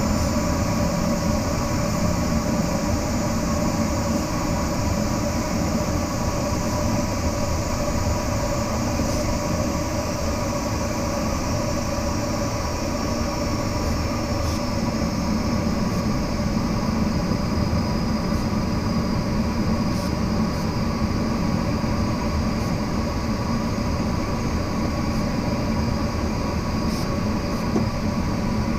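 Steady rushing airflow noise inside a glider's cockpit in flight, with faint steady tones running through it.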